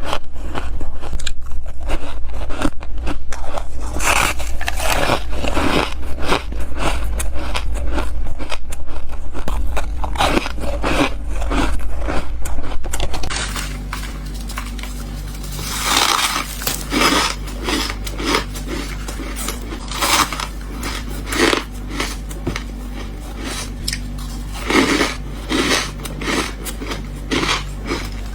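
Close-up bites into freezer frost, a long run of squeaky, crunchy crunches in quick succession. A low steady hum sits under the first half and drops away partway through.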